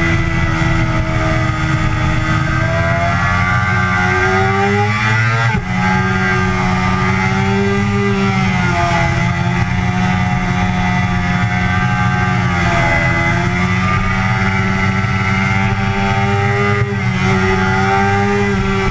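Yamaha sport bike's engine heard from onboard at track speed, pulling hard with the pitch climbing and then dropping sharply at a gear change about five seconds in. The revs then rise and dip a few more times through the corners, over the rush of wind.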